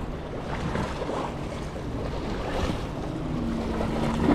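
Wind on the microphone over sea water washing against the shore, with a steady low hum coming in about three seconds in.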